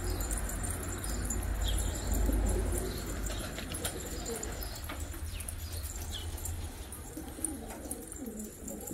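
Domestic pigeons cooing, a run of low coos, with a few short high chirps over a steady low rumble.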